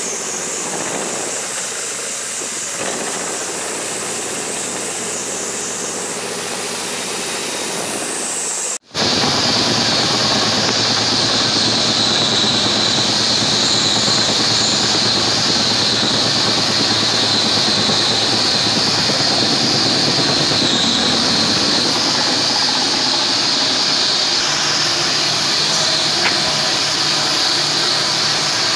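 Vertical milling machine's end mill cutting a metal block: a steady machining noise with a hiss. About nine seconds in it breaks off for an instant and resumes louder, with a steady high hiss.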